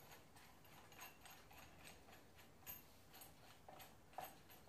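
Faint, irregular metallic clicks from a bearing puller being worked to draw a bearing off a gearbox shaft.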